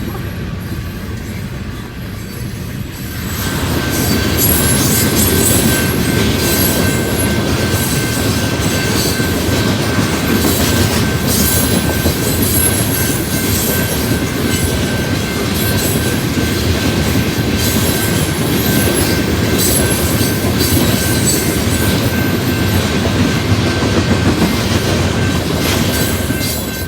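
Freight train passing fast at close range: wheels clattering over the rails with a steady high ring, the noise swelling about three and a half seconds in and holding until it drops away at the very end.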